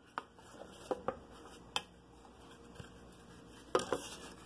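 Light clicks and knocks of small wooden pieces being handled and set down on a scroll saw's metal table: a few separate taps, with a louder cluster near the end, over a faint steady background hum.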